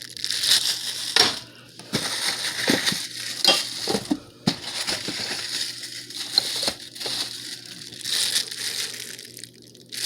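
Packaging being handled and crinkled, with a scatter of sharp clicks and small knocks from parts being moved about.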